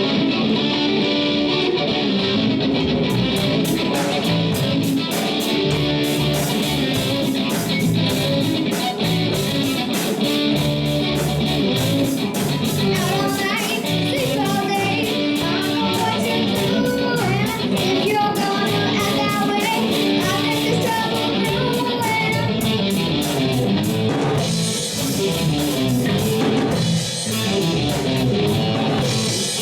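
Live rock band playing a funk-rock song: electric guitars over bass guitar and drums, with a steady cymbal beat.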